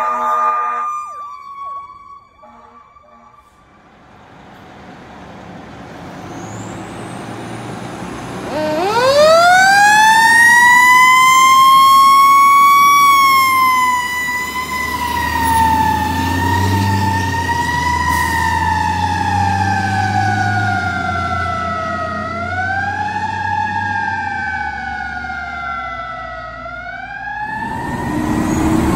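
A fire engine's siren winds up from a low growl to a high wail about a third of the way in. It then slowly sinks in pitch, sped up twice briefly near the end, over the low rumble of the truck's engine. It opens with the end of a steady horn blast.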